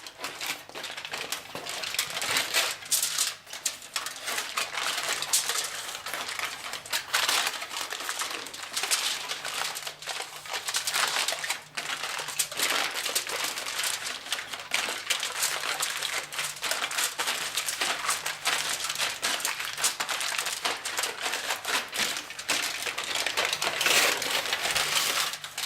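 Aluminum foil crinkling and rustling as it is lifted and peeled back to roll up a bacon-wrapped filling, a steady run of small crackles and clicks.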